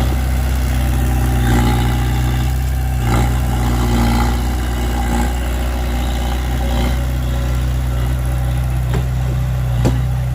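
Heavy diesel engine running steadily with a deep, even hum, and a sharp knock near the end.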